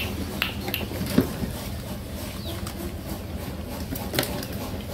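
Puppies eating together from a plastic bowl: chewing and lapping with scattered sharp clicks and knocks.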